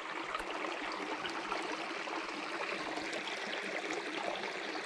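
Small mountain creek running steadily over rocks and gravel, an even rush of flowing water.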